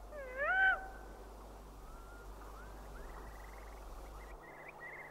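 A short wavering owl cry sounds once in the first second, pitched and dipping then rising. After it, faint quick high chirps repeat in the night background.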